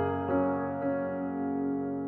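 Background piano music: a couple of soft notes are struck in the first second, then they ring on and fade.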